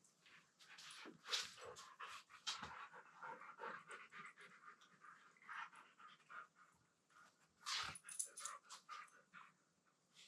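Two Siberian huskies play-wrestling: panting and scuffling, with a few sharp knocks, the loudest about one and a half seconds in and again near eight seconds.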